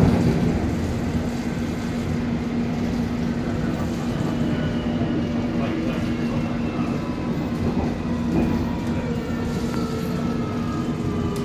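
London Underground Circle Line train running, heard from inside the carriage: a steady rumble of wheels on rail under a low hum. From about four seconds in, the electric motor whine slides slowly down in pitch as the train slows.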